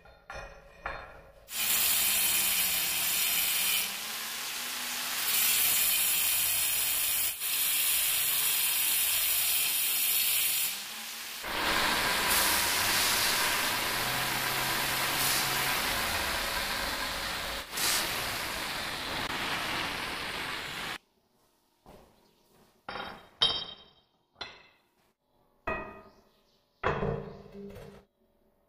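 Angle grinder with a red abrasive disc grinding the edge of a small black granite piece: a loud, steady grinding noise that starts shortly in, changes tone about halfway, and cuts off suddenly. A few short, sharp knocks follow near the end.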